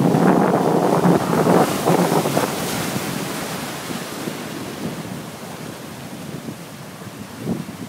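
Sea waves breaking and washing around boulders on a rocky shore, with wind buffeting the microphone. The surf is loudest for the first two and a half seconds, then dies down, with another surge near the end.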